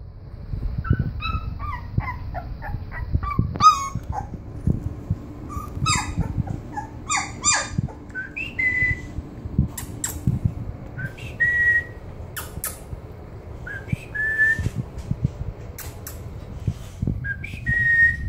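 Three-week-old bulldog puppies whimpering and squeaking: a quick flurry of short high whines in the first half, then single longer squeals every few seconds.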